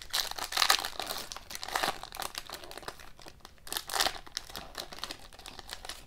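Foil wrapper of an Upper Deck hockey card pack crinkling and tearing as it is ripped open by hand: a run of irregular crackles, with the loudest rip about four seconds in.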